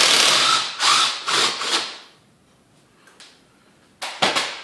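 Power drill run in short bursts, spinning bolts out of an ATV engine's top end: several bursts in the first two seconds, then two quick ones near the end.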